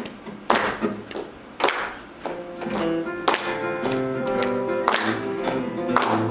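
Spanish acoustic guitar playing flamenco in the soleá rhythm: a handful of sharp percussive accents, then chords ringing out from about two seconds in, with hand claps (palmas) keeping time.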